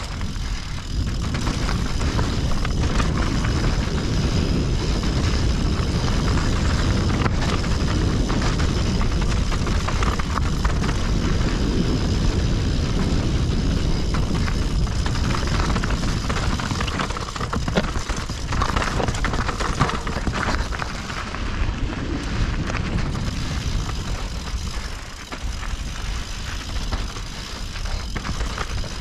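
Mountain bike riding down a rough, technical trail: steady wind rumble on the microphone, tyre noise and frequent knocks and rattles from the bike over rough ground.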